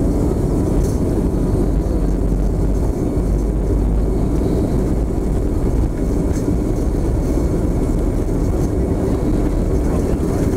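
Cabin noise of a BAe 146 airliner on its takeoff roll: its four Lycoming ALF 502 turbofans at takeoff power, with the rumble of the wheels on the runway, heard from inside the cabin. A steady, loud, deep rumble.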